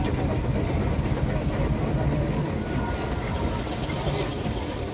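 Steady low rumble of a traction engine running along a gravel track, heard from on board.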